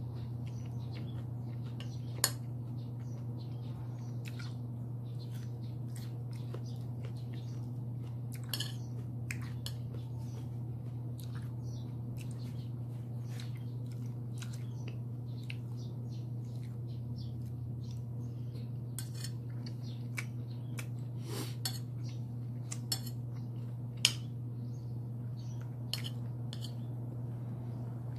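Metal spoon and fork clinking and scraping on a plate during eating, in scattered sharp clicks, the loudest about two seconds in and near the end, over a steady low hum.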